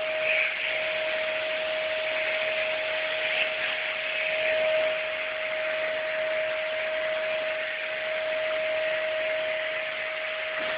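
Vacuum cleaner running steadily with its brush head on a gas heater's air filters: a constant rush of air with a steady whine.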